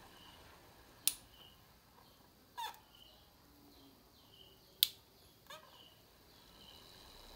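Clicks from the PWM speed-controller knob on a 12 V DC-converted stand fan as it is turned: two sharp clicks about four seconds apart, with a softer tick after each.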